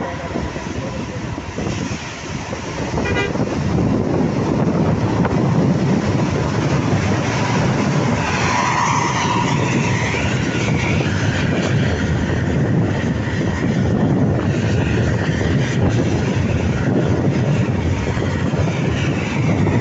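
Road traffic noise from travelling along with vehicles, a steady rumble with wind that grows louder a few seconds in. Horn toots sound now and then, with a short run of horn tones around eight to ten seconds in.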